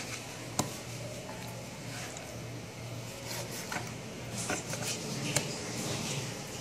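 Knife and hands working a raw whole chicken on a plastic cutting board: faint cutting, scraping and squishing of the meat, with two sharp clicks, one about half a second in and one about five seconds in, over a steady low hum.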